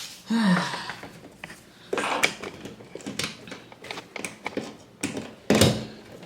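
Objects being handled and set down: a string of short clicks, knocks and rustles, the loudest burst near the end.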